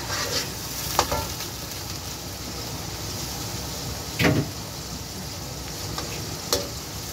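Browned onions sizzling in oil and water in an aluminium pot as a metal slotted spatula stirs them. The spatula knocks against the pot a few times, loudest about four seconds in.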